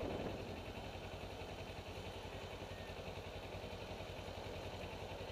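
Motorcycle engine running at low revs with a steady, even low pulse, heard from a helmet-mounted camera.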